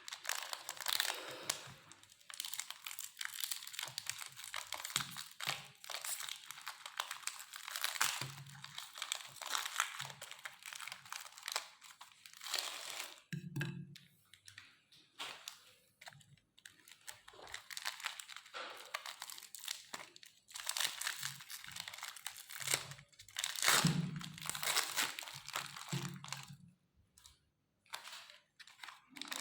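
Meat grinder crushing wafer biscuits: dense, irregular crunching and crackling, with occasional dull knocks and a few brief pauses.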